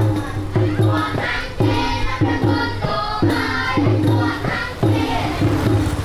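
A group of Cambodian children singing a traditional Khmer song together in short phrases, over a steady, regular low drum beat.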